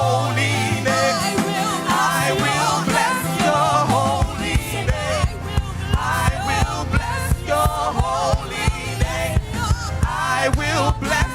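Gospel worship music with singing over a held bass; a steady drum beat comes in about four seconds in.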